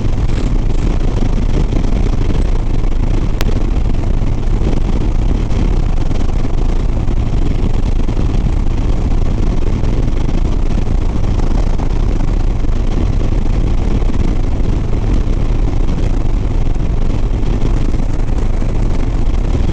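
Harley-Davidson Softail Sport Glide's V-twin engine running at a steady highway cruise, a constant low rumble under wind rushing over the helmet microphone.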